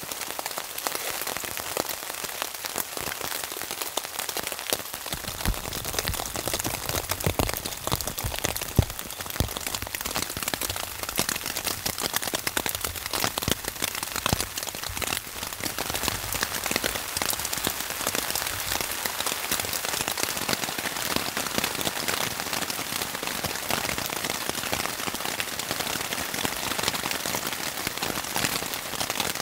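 Steady rain falling on a tarp shelter, heard from underneath: a dense hiss of countless separate drops striking the fabric, with a few heavier hits between about six and nine seconds in.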